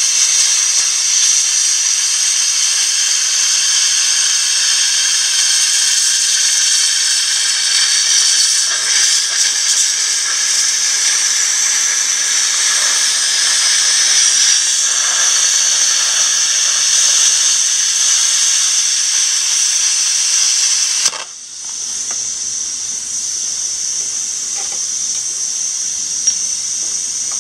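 Air plasma cutter torch cutting through the end of a steel pipe: a loud, steady hiss of the cutting arc and air jet. About twenty seconds in it cuts off abruptly and drops to a quieter steady hiss.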